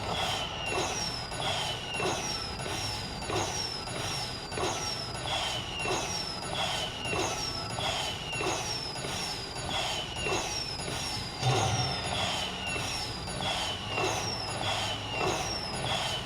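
Slot machine sound effect looping: a falling electronic chirp with a soft knock, repeating about every two-thirds of a second over casino background noise, typical of a bonus round playing out or its win being tallied.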